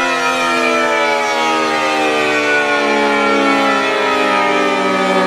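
Car wash air dryer blowers winding down, a steady whine of several tones that falls slowly in pitch as the fan motors coast to a stop after the car has passed through.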